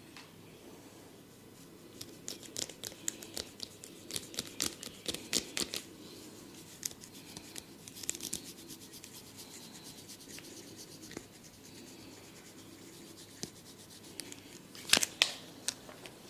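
Hands and a comb working through hair and over the scalp in a head massage: rubbing and scratching, broken by runs of sharp crackling clicks and two loud snaps near the end.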